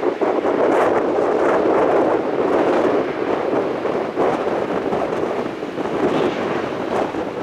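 Jet airliner engines heard as a loud, rough noise that rises and falls unevenly, with wind buffeting the microphone.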